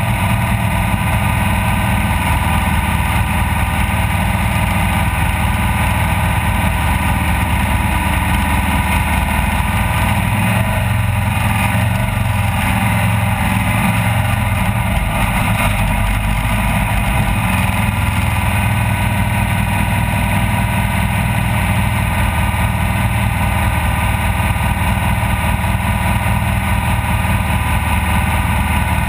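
Off-road race vehicle's engine running hard at a steady, unchanging pitch, loud and continuous, with a heavy low rumble underneath.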